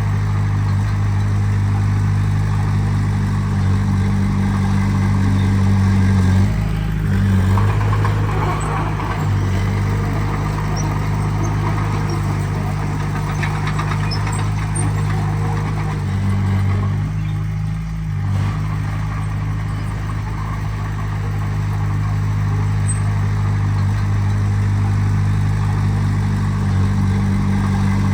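Diesel engine of heavy earthmoving machinery running steadily, its pitch shifting about six seconds in and again around seventeen to eighteen seconds in.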